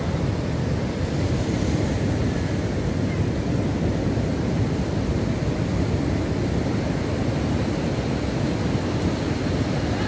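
Heavy surf breaking along a sandy shore: a steady, even rumble of waves.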